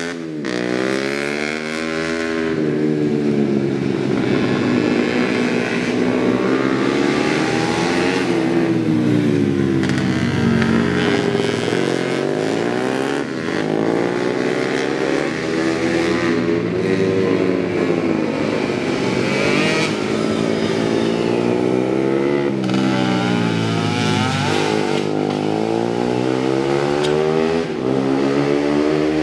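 Race motorcycle engines revving hard, the pitch climbing and dropping over and over every few seconds as the bikes accelerate, shift and slow for corners.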